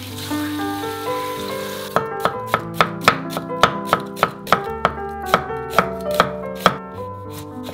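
Water running over lettuce leaves in a bowl, then a knife slicing an onion on a wooden cutting board: about fifteen quick, even strokes, roughly three a second, each a sharp knock of the blade on the board, stopping shortly before the end. Background music plays throughout.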